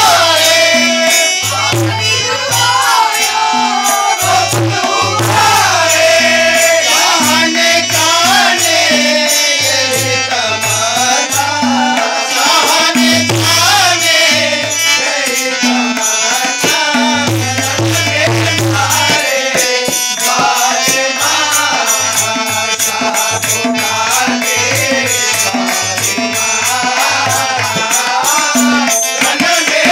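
A Muharram rivayat sung live by a loud lead male voice with a group of men joining in, accompanied by harmonium and tabla. The tabla keeps a busy rhythm of sharp strokes over repeated deep bass-drum strokes.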